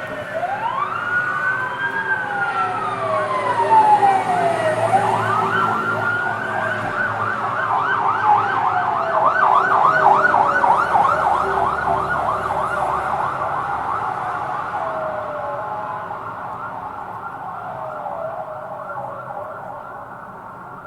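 Fire engine's electronic siren. It sounds slow rising-and-falling wails, switches about seven seconds in to a fast yelp of roughly three sweeps a second, then goes back to wails that fade as the vehicle moves away.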